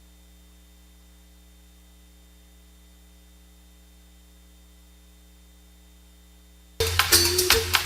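Steady low electrical hum with a stack of faint, evenly spaced overtones: dead air on the broadcast feed. About a second before the end, drum-backed music cuts in suddenly.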